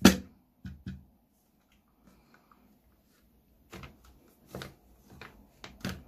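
Sharp clicks and knocks of hard plastic parts being handled. The loudest comes at the very start, two more follow just under a second in, and a cluster of four or five comes in the last two seconds.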